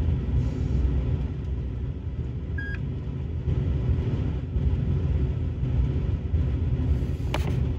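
Steady low rumble inside a pickup truck's cab. A short beep comes a little under three seconds in, and a single click comes near the end.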